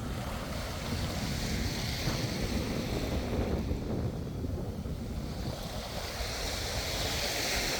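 Sea wind rumbling on the microphone over waves washing, with the wash swelling louder twice, about two seconds in and again near the end.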